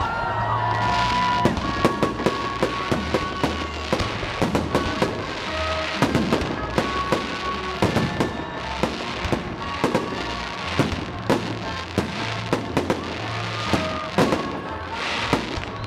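Fireworks display: a rapid, continuous series of sharp bangs and crackling bursts, several a second, with music playing underneath.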